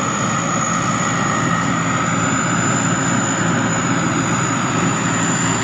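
Sakphattana SS-300 combine harvester running steadily under load while harvesting rice, its single-turbo Hino J08C diesel giving a steady high turbo whine over the even drone of the engine and threshing machinery.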